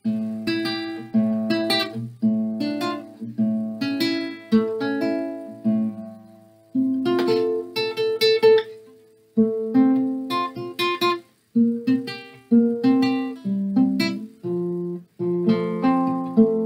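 Cordoba Estudio nylon-string classical guitar played fingerstyle, plucked notes and chords ringing out in short phrases that stop briefly several times and start again.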